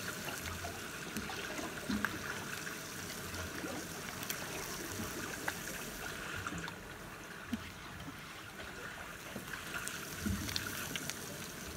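Water trickling and lapping against the side of a small boat, a steady wash with small irregular splashes and ticks.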